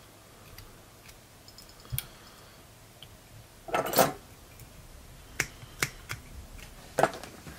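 Sharp little snips and clicks of small fly-tying scissors trimming marabou on a hook, four of them spaced over the last few seconds, with a louder brief rasp a little past the middle.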